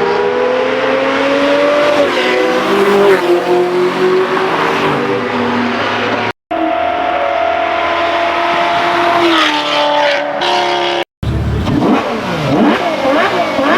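High-revving supercar engines accelerating hard, the pitch climbing through a gear and stepping down at each upshift. The sound is broken twice by a split-second of silence, and in the last part the revs rise and fall quickly.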